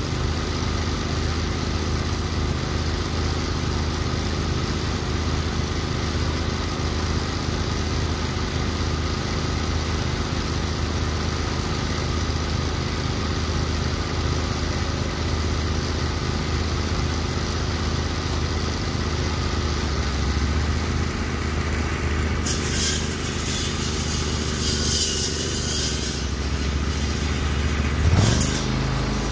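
Small engines on a zero-turn mower with a front-mounted saw-blade brush cutter running steadily at idle. A couple of seconds before the end the engine speeds up with a rising pitch, and a brief high hiss comes and goes.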